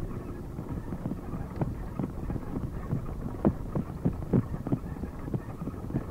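Wind rushing over a phone microphone on a moving bicycle, with a steady road rumble and irregular light knocks and rattles a few times a second.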